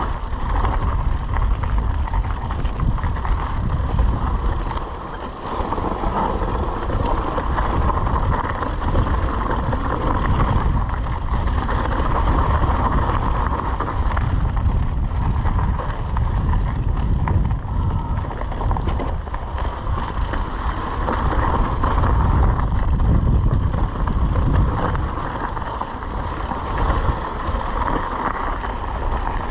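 Mountain bike riding down dry, rocky dirt singletrack: continuous tyre and trail noise, with wind rumbling on the camera microphone.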